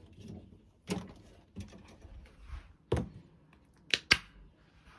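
Kitchen handling noises as a plastic yogurt jar is fetched and opened: a few dull knocks from a door and the jar being handled, then two sharp clicks close together about four seconds in as the jar's foil lid is pulled back on the table.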